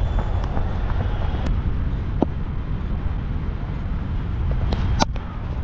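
Wind rumbling steadily on a helmet-mounted action camera's microphone, with a few small clicks and one sharp crack about five seconds in.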